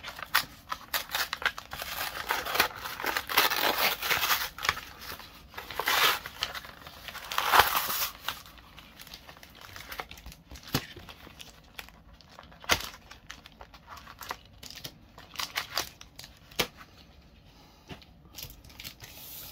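Plastic-and-cardboard blister pack of trading-card booster packs being torn open: crinkling plastic and ripping cardboard for about the first eight seconds, with one sharp loud rip just before eight seconds. After that come scattered light taps and rustles as the foil booster packs are handled and laid down.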